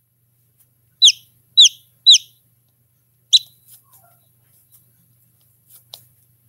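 Chicken chick peeping: four loud, short peeps, each falling in pitch, the first three about half a second apart and the last a second later. A few faint ticks follow near the end.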